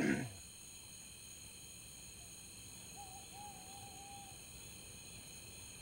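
Night ambience with a steady high chorus of crickets; about three seconds in, a single wavering owl call lasting just over a second.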